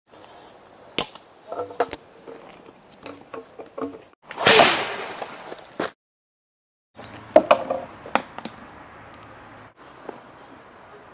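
Homemade PVC potato cannon firing: one loud bang about four seconds in that trails off over about a second and a half. Scattered sharp clicks and knocks come before and after it as the launchers are handled and readied.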